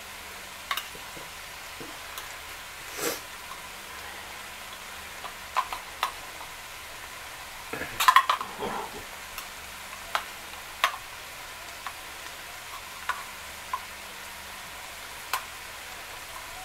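A fork clicking and scraping inside a small metal can of chipotle peppers as the whole peppers are picked out, in irregular light clinks with a louder cluster about eight seconds in, over a low steady hiss.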